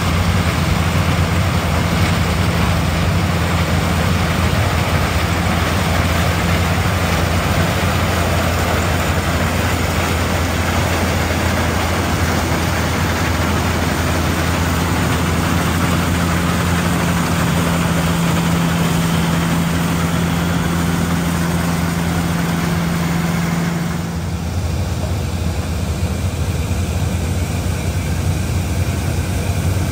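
Old tractor engine running steadily, a low hum under a wide wash of mechanical noise; the noisy part drops off abruptly about 24 seconds in while the low hum carries on.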